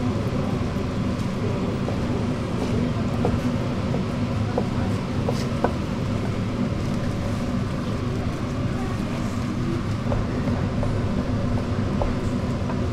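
A kitchen knife cutting through Korean blood sausage (sundae) on a wooden cutting board, with a few scattered sharp taps of the blade on the board, over a steady low rumble.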